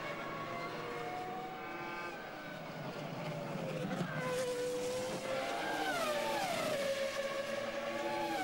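Formula One cars' 3.0-litre V10 engines running at speed with a high, screaming note. About six seconds in the pitch drops, then holds steady.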